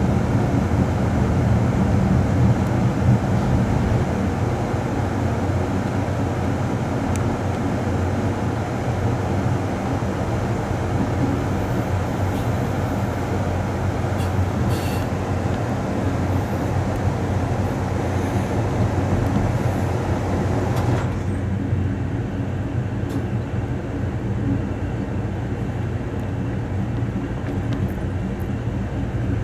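Amtrak Coast Starlight passenger train running along the track: a steady, even rumble of wheels and cars. The higher hiss drops off abruptly about two-thirds of the way through.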